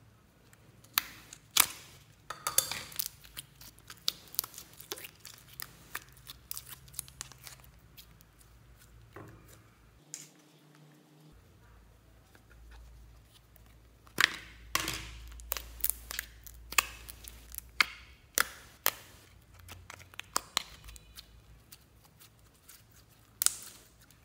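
Slime being squeezed out of small plastic tubs and pressed onto other slime in a glass bowl: a run of sharp clicks, pops and crackles from the plastic and the slime, in two busy stretches with a quieter spell between.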